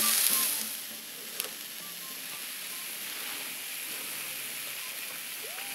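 Beef and mushrooms sizzling on a hot cast-iron grill pan, with a steady hiss. The sizzle is louder for about the first second, then settles.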